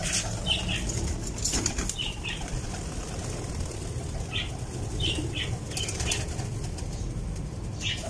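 Fantail pigeons flapping their wings in short flurries as they move about on a rooftop floor, with a few brief high chirps in between.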